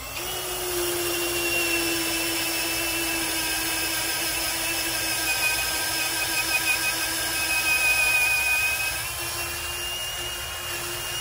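Cordless drill boring a hole through a wooden bunker board with a long 5/8-inch wood drill bit, its motor whining steadily. The pitch sags a little under load in the middle and rises again toward the end.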